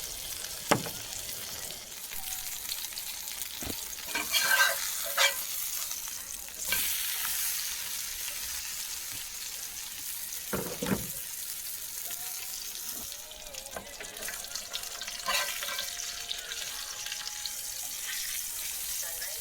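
T-bone steak sizzling steadily in a hot pan, with a few sharp knocks from utensils along the way.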